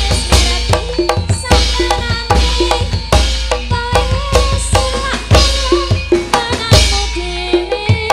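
Live Javanese gamelan: kendang hand-drum strokes drive a brisk rhythm over ringing bronze metallophones and deep sustained gong tones. A woman's voice sings a wavering melody over the ensemble.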